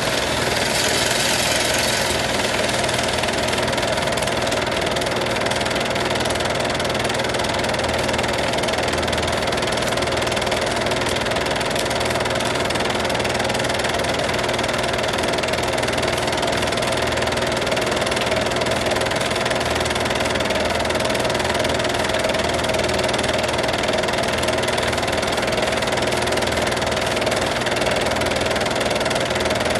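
Home-movie film projector running: a steady mechanical whirr and clatter that goes on without a break.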